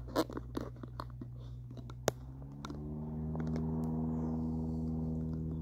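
Clicks and knocks of a camera arm being positioned by hand, with one sharp click about two seconds in. Then a low hum rises briefly in pitch and holds steady.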